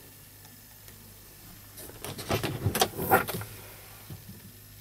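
Plastic overhead storage compartment lid in a Scania S-series truck cab being unlatched and swung open: a quick run of clicks and knocks lasting about a second and a half, near the middle.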